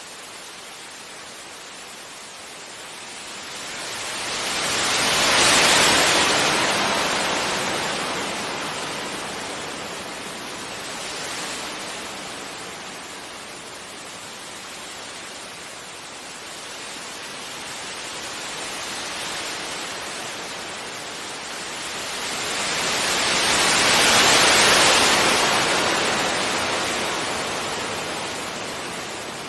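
Sea waves breaking softly on a beach: a steady wash of surf with two big swells as waves break, about 5 and 24 seconds in, and two smaller ones between, each fading back as the water runs out.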